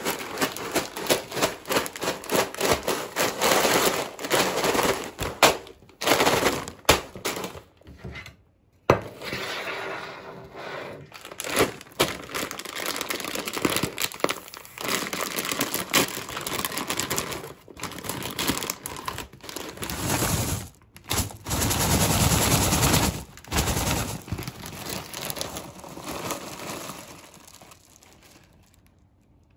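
Plastic cereal bag crinkling and being torn open, with dry, crunchy cereal pieces rattling and clicking. The crackling is dense and irregular, with a short pause after several seconds.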